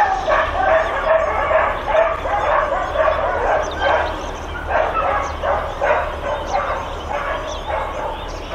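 Several dogs at a boarding kennel barking continuously, their barks overlapping several times a second with no break, over a steady low hum.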